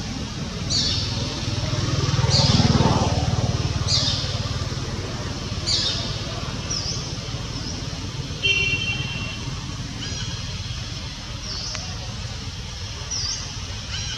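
Bird calls outdoors: short, high, sharp notes that drop in pitch, repeating every second or two, with a brief cluster of steady higher tones about eight seconds in. Beneath them runs a steady low rumble that swells for a moment a couple of seconds in.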